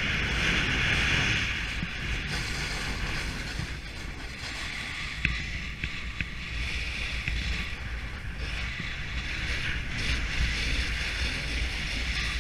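Snowboard base and edge scraping over groomed snow, a hiss that swells and fades every few seconds as the board turns, with wind buffeting the microphone as a low rumble.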